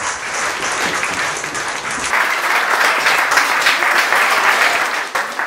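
Small audience clapping in applause, growing louder about two seconds in.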